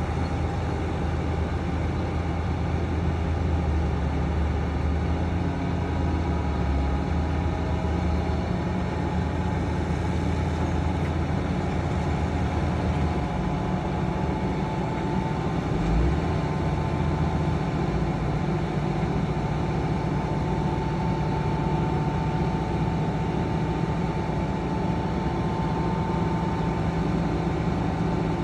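Heavy diesel earthmoving machinery running steadily, with a steady high whine over the low engine hum. The hum changes pitch about halfway through, with a brief low thump.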